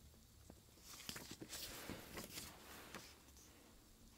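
Faint rustling and light clicks of paper leaflets and thin card inserts being handled and shuffled, busiest from about a second to three seconds in.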